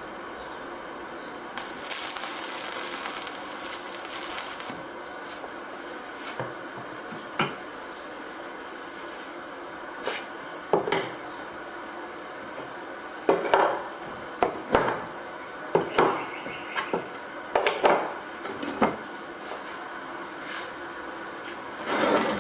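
Small metal parts and tools clinking and tapping in irregular knocks, with a stretch of hiss about two seconds in.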